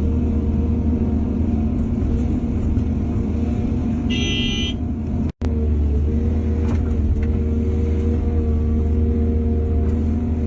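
Excavator's diesel engine running steadily, with a short high-pitched tone about four seconds in. The sound cuts out for an instant just after five seconds in.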